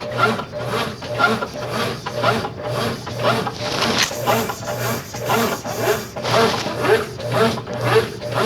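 Consul Facilite 10 kg top-loading washing machine in its wash stage, its motor reversing the wash action back and forth so that bedding and towels swish and rub through the water in an even rhythm, about one and a half strokes a second, over a pulsing motor hum. The machine is being test-run after a mechanical overhaul.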